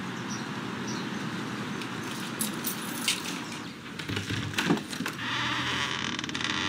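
Light clicks and rattles of a front door's latch and handle as the door is opened, over a quiet background. Soft background music fades in over the last second and a half.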